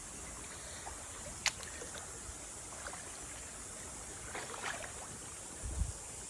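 Creek water running with a steady high hiss, broken by a sharp snap about a second and a half in, a few light crunches around four to five seconds in, and a low thud near the end.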